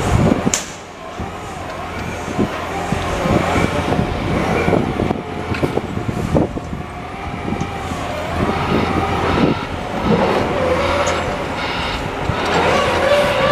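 Construction site and street noise: engines of machinery and vehicles running, with a few sharp knocks. A steady whine comes in near the end.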